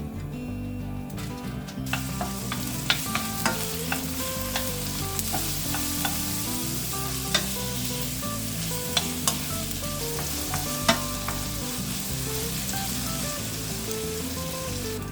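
Food stir-frying in a pan: a steady sizzle that starts about two seconds in, with scattered sharp taps and scrapes of the spatula against the pan.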